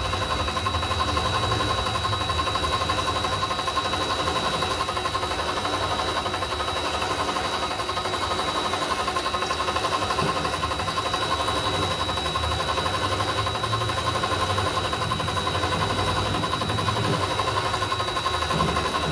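Vevor MX-8x14 mini lathe running steadily with its spindle at about 690 rpm. Its brushed DC motor and drive give an even whine with a thin high tone over a low hum.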